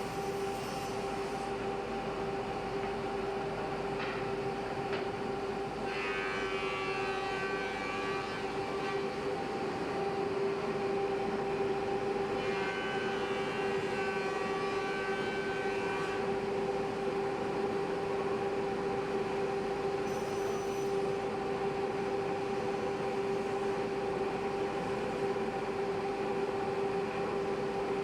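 D45-1600 sliding-table panel saw running at speed: a steady motor and blade whine over an even machine noise. Two stretches of extra higher tones come in, about six seconds in and again about twelve seconds in.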